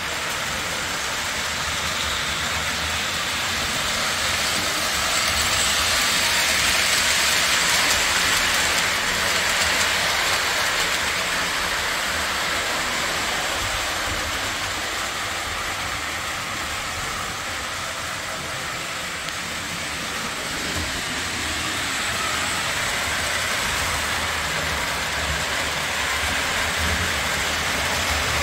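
Lionel O-27 toy electric trains running on three-rail track: a steady rolling rumble and whir of wheels and motors, swelling louder twice as a train passes closer.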